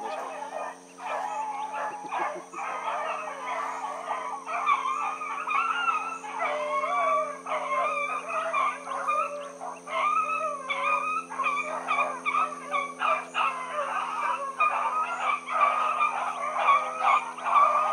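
A pack of rabbit hounds baying as they run a rabbit's trail, many voices overlapping in a continuous chorus.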